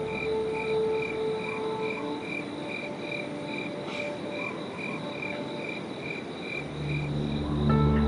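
Frogs croaking in an even rhythm, about two to three calls a second, with a steady high insect-like trill behind them. Soft held music tones fade out about two seconds in and swell back near the end.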